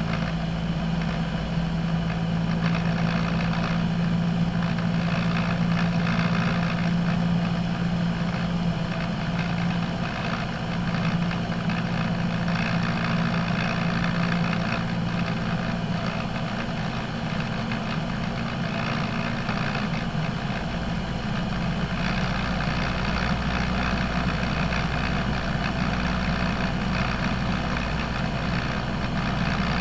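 Single-engine light aircraft's piston engine and propeller droning steadily in flight, heard from inside the cockpit. The engine note shifts slightly about two-thirds of the way through.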